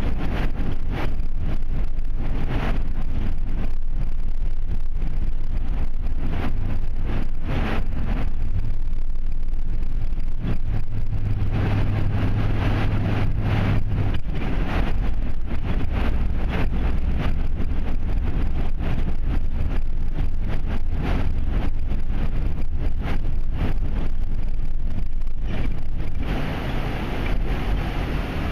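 Road and engine noise heard from inside a car creeping through a traffic tunnel: a steady low rumble with frequent short thuds. A low hum comes in for a few seconds about eleven seconds in, and near the end the sound becomes a more even hiss.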